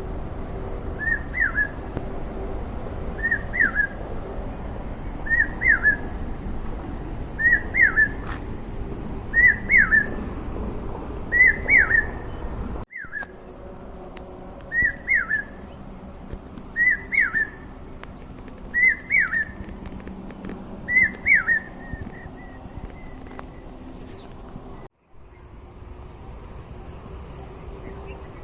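A bird repeating a short, whistled call with a quick pitch glide about every two seconds, around a dozen times, over a steady low background noise; the calls stop a little after two-thirds of the way through.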